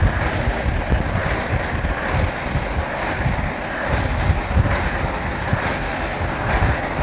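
Wind buffeting a microphone that is moving along a road, a steady rushing noise over an uneven low rumble.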